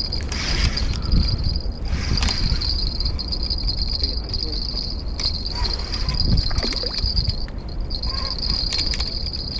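Spinning reel being wound in while playing a hooked fish: a steady high whirr that stops briefly a few times. Wind rumbles on the microphone underneath.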